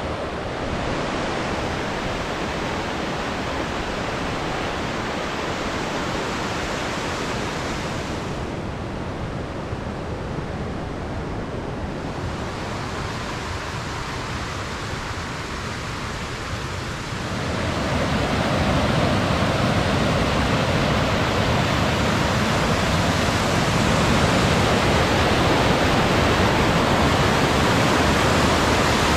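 Bald River rushing over rocky rapids, a steady roar of whitewater. It grows louder and fuller a little past halfway, as the churning whitewater comes close.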